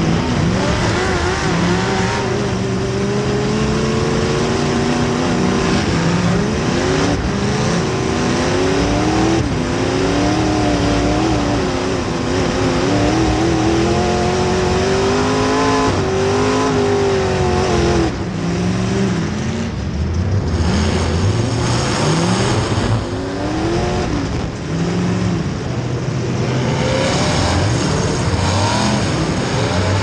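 Demolition derby car's engine, heard from inside the stripped cabin, revving up and down repeatedly as the car drives and maneuvers, its exhaust pipes standing straight up through the hood.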